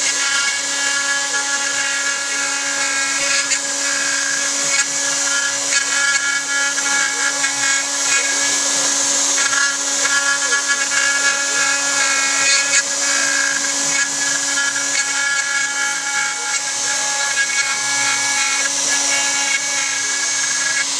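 Joe's 4x4 CNC router running, its spindle spinning an eighth-inch cutter that carves a three-dimensional relief into pine: a steady whine with a hiss of cutting over it, rising and falling slightly as the cutter moves.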